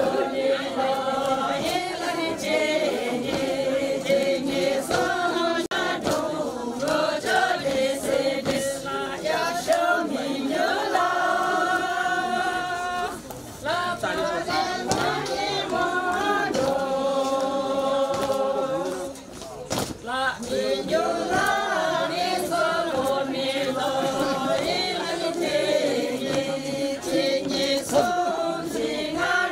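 A group of voices singing a Sherpa shyabru song unaccompanied, in long drawn-out notes, breaking off briefly twice.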